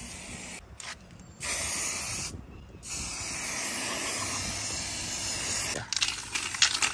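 Aerosol spray paint can hissing in three bursts with short pauses between, the last about three seconds long, followed by a run of quick clicks near the end.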